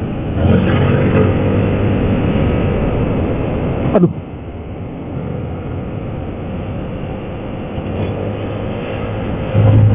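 Motorcycle engine and wind noise picked up by a helmet intercom microphone while riding. About four seconds in a short falling whine sounds and the overall noise drops a little; near the end the low engine hum grows louder.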